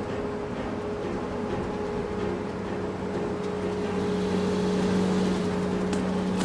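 Engine of farm machinery running steadily with an even hum, which grows a little louder about four seconds in.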